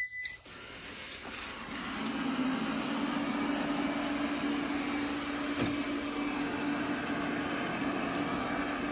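A eufy robot vacuum beeps once as it is switched on. Its suction motor and brushes then spin up over about two seconds and run steadily with a constant hum. There is one brief click about halfway through.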